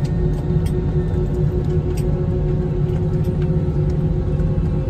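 Airbus A320 cabin noise while taxiing after landing: a steady low rumble from the engines at idle, with a few faint rattles, mixed with soft ambient background music.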